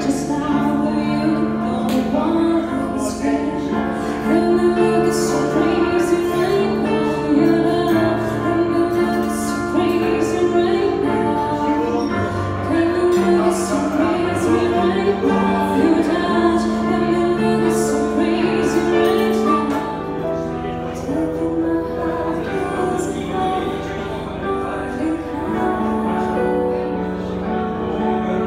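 A woman singing a slow lounge song into a microphone with vibrato on held notes, accompanied by a digital piano.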